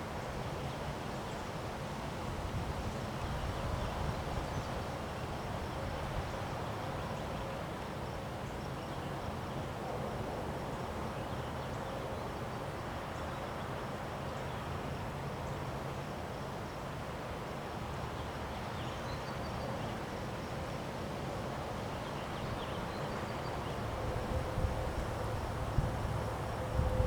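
Windstorm blowing without a break, with a gusting low rumble on the microphone; it grows louder in the last few seconds.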